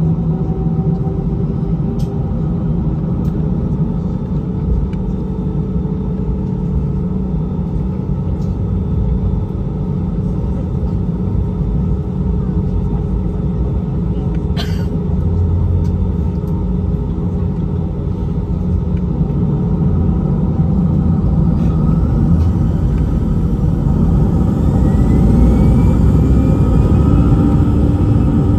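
Cabin sound of an Airbus A320-216 with its CFM56 engines running as the jet taxis onto the runway: a steady low rumble with faint whining tones. Near the end a rising whine comes in and the rumble grows louder as the engines spool up for takeoff. A single sharp click about halfway.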